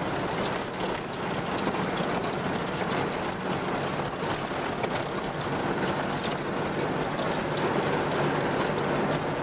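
Cabin noise of a vehicle driving on a sandy dirt track: a steady engine drone and tyre rumble, with small rattles and knocks throughout.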